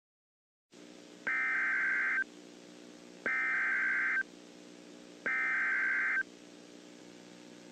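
Three identical electronic beeps, each about a second long and two seconds apart, over a faint steady low hum.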